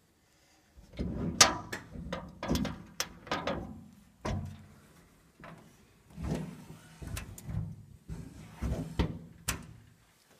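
Sheet-metal clunks, knocks and rattles from a Viadrus Hercules DUO boiler's fuel hopper as its metal rod, lid and crank handle are worked by hand. The knocks come irregularly, each with a short low rumble, starting about a second in and stopping near the end.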